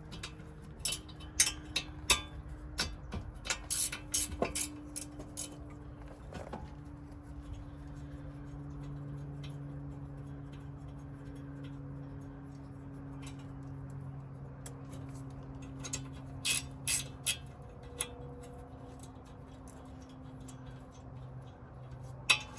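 A hand ratchet clicking in short runs as 10 mm bolts are loosened, with small metal tool clinks. A low steady hum runs underneath through the middle.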